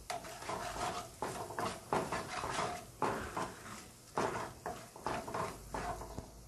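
A spatula stirring and scraping spices in oil around a non-stick wok: a dozen or so irregular scraping strokes against the pan.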